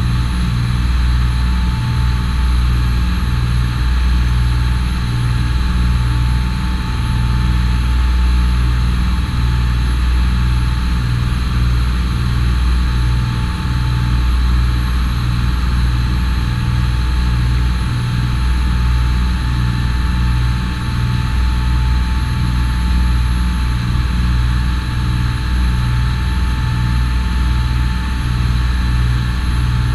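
Charter fishing boat's engine running steadily, a loud low drone with a regular throb.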